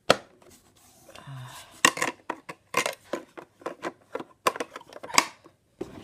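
Hard plastic clicks and knocks as the green filter cover and body of a Sebo K1 canister vacuum cleaner are handled. A sharp click right at the start is the loudest, followed by an irregular run of clicks, several a second.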